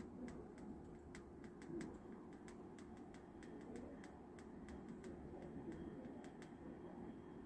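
Faint, irregular light clicks, about fifteen in six seconds, that stop shortly before the end, over a low steady hum.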